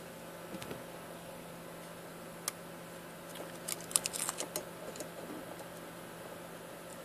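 Light clicks and taps of a small stripboard circuit board being handled and turned over by hand: one sharp click about two and a half seconds in, then a quick cluster of ticks near the middle.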